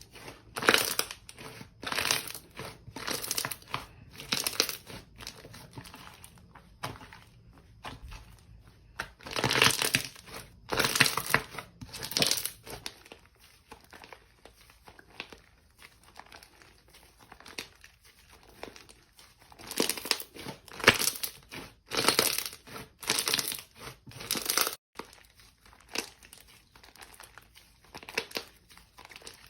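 Slime being pressed and squished by hand, giving repeated short crackling bursts about once a second, in clusters with quieter pauses between.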